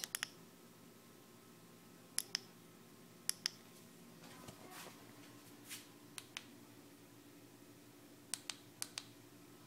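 Faint, sharp clicks, about a dozen and mostly in quick pairs, a second or more apart: a small push button on a bicycle light being pressed repeatedly.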